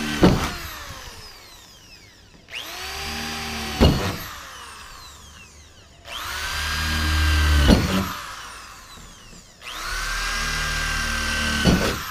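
Corded electric drill boring small holes through the VW Kombi's sheet-steel roof. It makes repeated short runs, three full ones about every four seconds, each with a rising whine, a steady spin and a sharp click at the end, followed by the motor spinning down.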